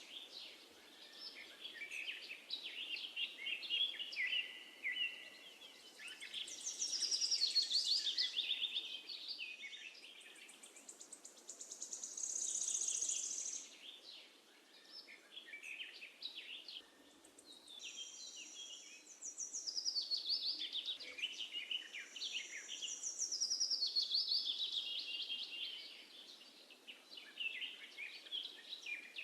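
Songbirds singing and chirping: overlapping trills and quick runs of high notes, swelling and fading every few seconds over a faint steady background hiss.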